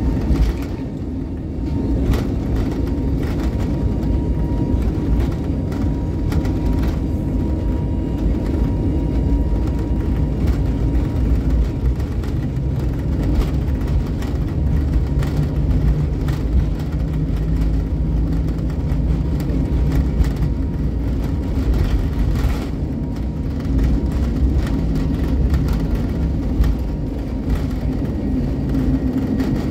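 Cabin sound of an Airbus A320neo on its takeoff roll, heard over the wing: the engines running at high power under a steady low rumble of the wheels on the runway, with a few brief thumps.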